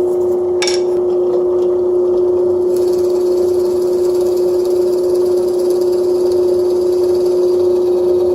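Drill press motor running with a steady whine as the bit drills into an oak block; a higher hiss comes in about three seconds in.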